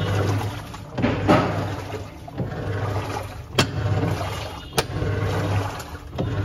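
LG fully automatic washing machine running a wash with water swishing in the tub and the drive humming in swells about once a second. Two sharp knocks stand out in the second half: the intermittent khat-khat that marks a faulty clutch assembly.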